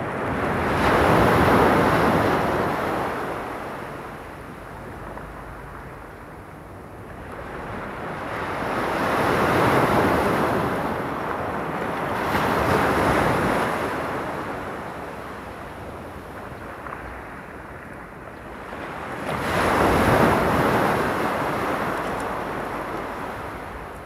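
Small sea waves breaking and washing up a pebble beach, in four slow swells of surf with quieter wash between them.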